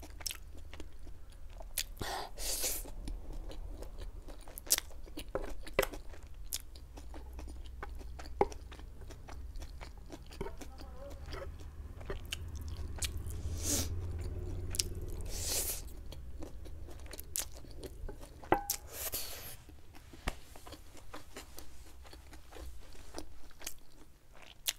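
Close-miked chewing of a mouthful of chicken chowmein noodles. Short sharp clicks run through it, from a fork working on a metal tray.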